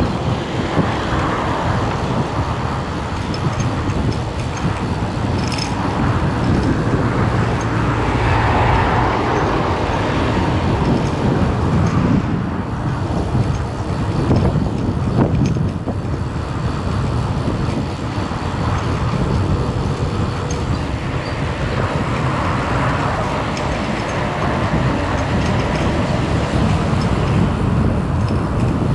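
Steady road-vehicle noise: a continuous rumble of engine and tyres on the road.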